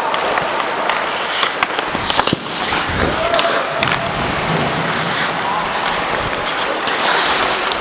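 Hockey skates carving and scraping on the rink ice, with several sharp clacks of sticks and puck, picked up close by a head-mounted camera.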